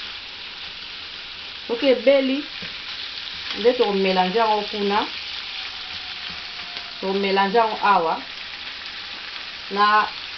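Strips of beef frying in a pan, a steady sizzle, as they are stirred and turned with a spatula and fork. Four short wavering pitched sounds, louder than the sizzle, cut across it.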